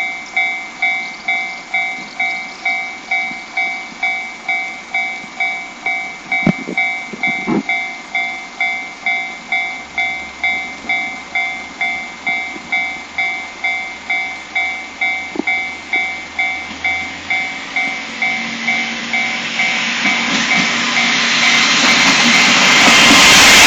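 Japanese level-crossing alarm ringing, a repeated electronic ding about one and a half times a second. In the last few seconds a three-car KiHa 40 series diesel train grows loud as it reaches the crossing, drowning out the bell, and the recording distorts.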